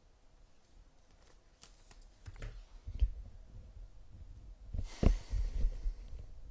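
Trading cards and their packaging being handled on a table: scattered light clicks and rustles, a knock about three seconds in and a louder rustle with a thump about five seconds in.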